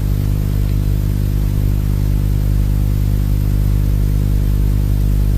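A steady low droning hum with many even overtones, unchanging in pitch and level throughout.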